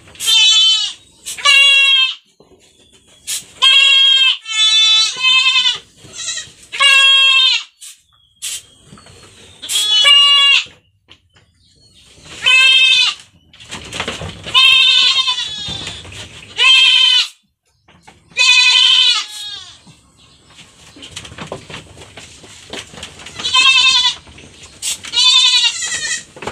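Goats bleating again and again, about a dozen short wavering calls, with short knocks and scuffling between calls.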